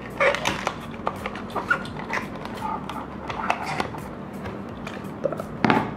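Small cardboard box and plastic packaging of a diecast model car being handled and opened: a run of light clicks, crinkles and rubbing, with a louder rustle near the end.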